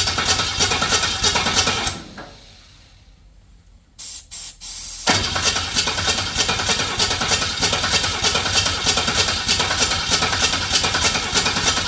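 HQ Holden engine being cranked and started while still being primed with petrol fed by hand, fuel not yet through the system. It cuts out about two seconds in, gives a couple of short bursts about four seconds in, then starts up again about five seconds in and keeps going.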